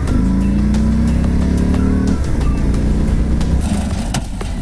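2018 Harley-Davidson Fat Bob's 107 cubic inch V-twin pulling under acceleration, its pitch rising and then dropping back about two seconds in. A single sharp knock near the end.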